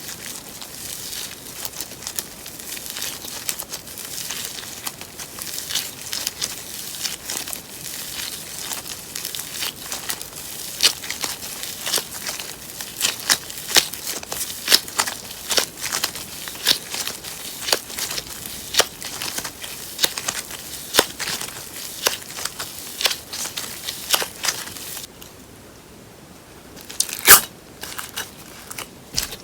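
Hands working slime mixed with paper clay: a continuous crinkly crackle broken by many sharp pops and clicks. It goes quieter near the end, then gives one loud pop.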